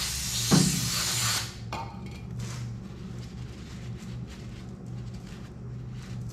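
Aerosol cleaner sprayed in one hissing burst of about a second and a half onto a washing-machine clutch pulley to clean it, followed by quieter rustling as the part is handled.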